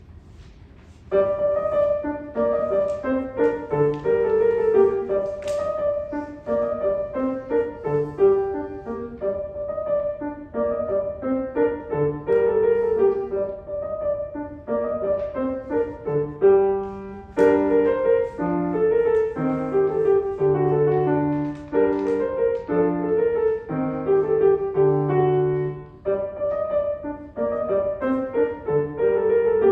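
Solo piano piece, starting about a second in, with one note struck again and again through the melody.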